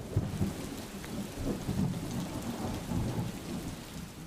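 Heavy rain hissing steadily, with low rumbles of thunder rolling through it.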